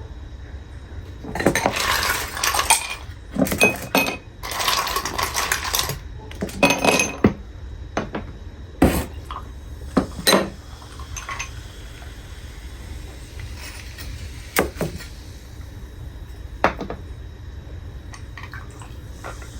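Dishes and cutlery being handled, clattering and scraping in several stretches over the first few seconds, then a few separate sharp clinks.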